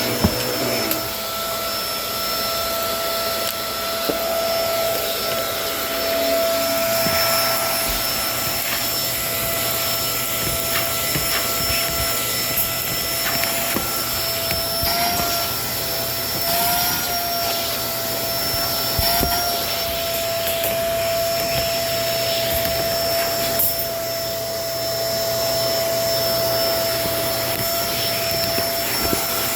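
Kenmore vacuum cleaner running steadily, a rushing hiss with a constant whine. The whine wavers briefly three times around the middle, and a few faint clicks come through.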